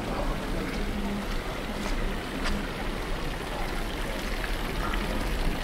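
Outdoor street ambience: a steady hiss like running water, with faint indistinct voices and a few light clicks.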